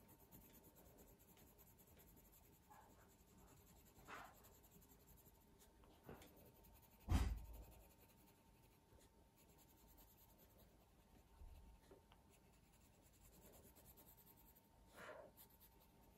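Coloured pencil shading on heavy cartridge drawing paper: a faint, steady scratching of the lead. A few soft knocks are mixed in, the loudest about seven seconds in.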